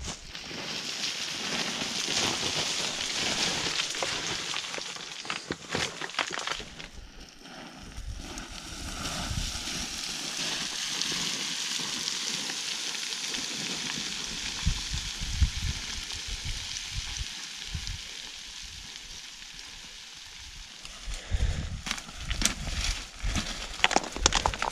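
Loose scree hissing and rattling under a person descending a steep rock slope, with sharper crunching footfalls and clattering stones near the end.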